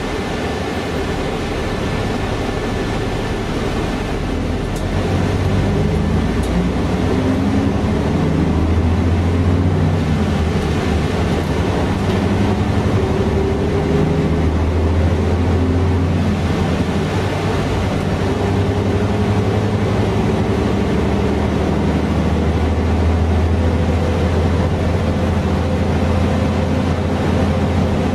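Diesel engine of a 1989 Mercedes-Benz O407 bus heard from inside the passenger cabin, with road noise, as the bus drives. The engine note climbs as it accelerates in the first half, drops once around the middle, then holds steady at cruising speed.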